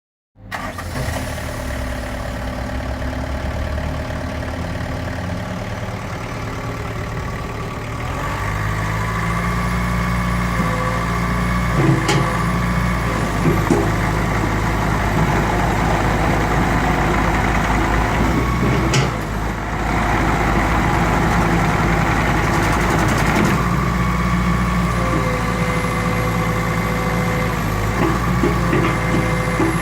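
JCB 8065 RTS mini excavator's diesel engine running steadily at idle, growing louder at about a third of the way in and staying at the higher level, with a brief dip near the middle and a few sharp clicks or knocks.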